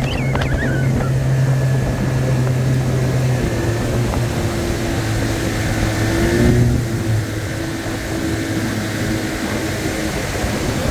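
Evinrude 25 hp two-stroke tiller outboard running steadily with the boat under way, holding an even pitch; about seven seconds in it swells briefly, then settles a little quieter.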